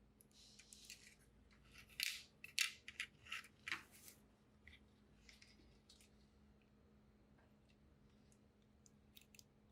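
Soft crackles and sharp little clicks from soldering the connector's pads, bunched in a burst of several ticks in the first four seconds, with a couple more near the end.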